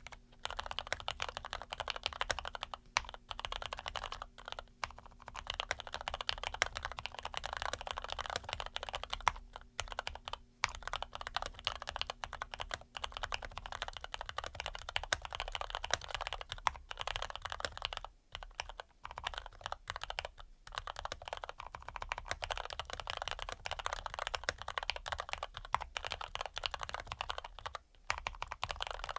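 Continuous fast typing on an ABKO AR87 mechanical keyboard with lubed and filmed Cherry MX Red linear switches: a dense stream of keystroke clacks with a few brief pauses.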